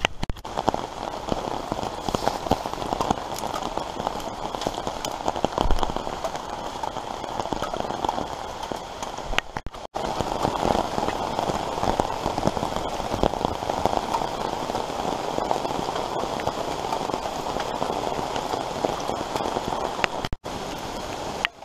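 Steady rain pattering on a tarp and woodland leaves, a dense hiss of small drop ticks. It breaks off briefly twice, about ten and twenty seconds in.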